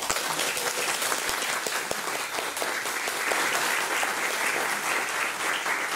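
Audience applauding: many people clapping in a dense, steady patter that starts abruptly.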